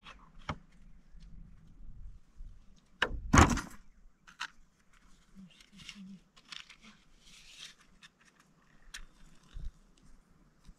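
Dry sticks being handled and laid into a stone fire pit: scattered clicks and light wooden knocks with some rustling, and one louder thump about three seconds in.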